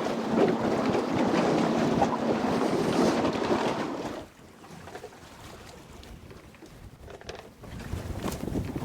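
Wind buffeting the microphone over water moving around a small boat. It is loud at first and drops away sharply about four seconds in, then builds again near the end.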